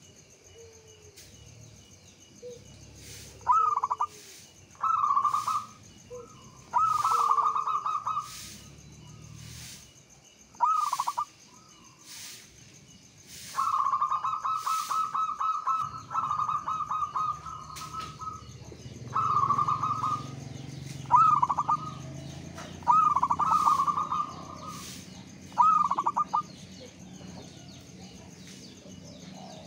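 Zebra dove (perkutut) cooing: short rolling phrases of coos come every second or two. Near the middle, one longer stuttering run of coos lasts about four seconds.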